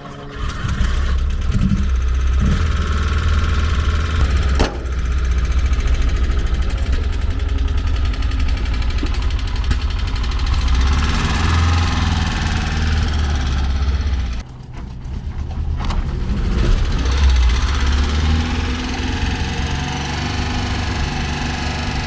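1968 Porsche 912's air-cooled flat-four engine running, steady at about idle, on an engine the owner says is losing compression on one cylinder. The sound breaks off sharply twice, about 5 and 14 seconds in.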